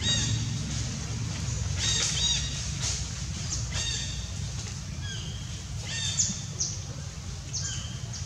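Short high-pitched animal chirps, about a dozen, some gliding up and some down in pitch, over a low steady rumble.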